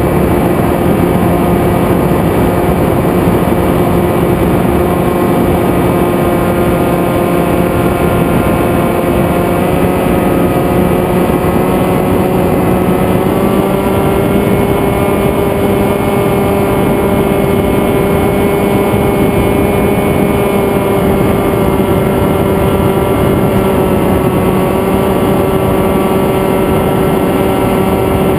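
Zephyr FPV flying wing's electric motor and propeller heard from its onboard camera: a steady, loud whine with a rush of wind, the pitch stepping up slightly about halfway through.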